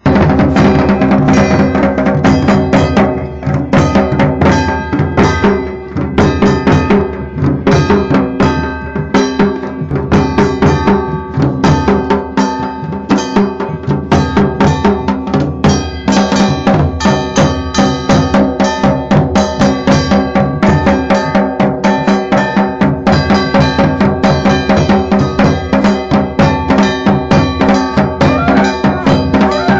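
Traditional Pahadi wedding band playing: dhol and nagara drums beating a fast, steady rhythm under sustained pitched instrument tones.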